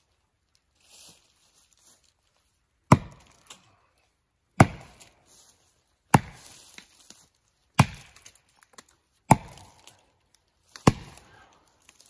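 Six axe blows into the trunk of a dead standing tree, about one every one and a half seconds, each a sharp chop followed by a brief softer tail.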